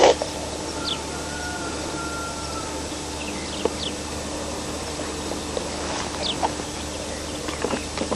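Birds chirping in open countryside: scattered short, quick chirps over a steady hiss. A sharp click comes at the very start, and one long, even call lasts about two seconds from about a second in.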